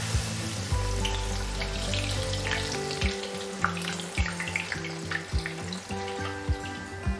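Cheese-stuffed, gram-flour-battered bread slice deep-frying in hot oil in a kadhai: a steady sizzle with sharp crackles and pops. Background music with a beat plays underneath.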